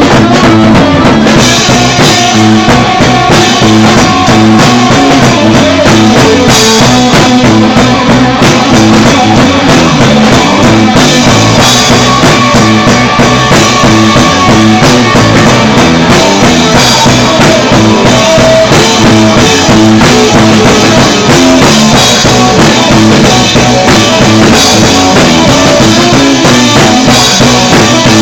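Loud instrumental rock music: a full band with drum kit and guitars playing steadily, with no singing heard.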